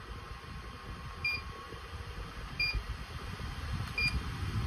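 KIAMI bladeless tower fan's control panel beeping, three short high beeps about a second and a half apart, as buttons are pressed to change its settings. An uneven low rumble of air noise runs under them.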